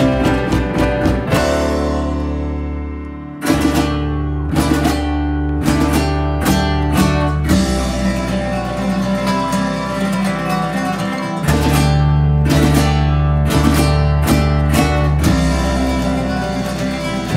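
Dance music with plucked guitar and sharp percussive hits over sustained bass notes; it fades down about two seconds in and comes back in on a hit a second later.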